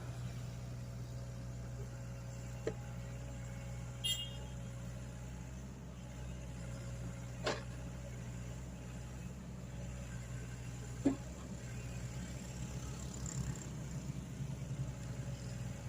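Mini excavator engine running steadily with a low hum, with a few short sharp knocks spread through.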